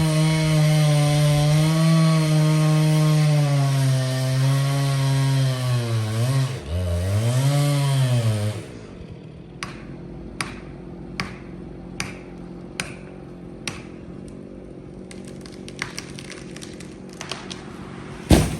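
Husqvarna chainsaw running at full throttle, cutting ponderosa pine limbs, its pitch dipping twice as the chain bogs in the wood. It stops about two-thirds of the way through, leaving a quieter stretch with light clicks about once a second and a sharp knock near the end.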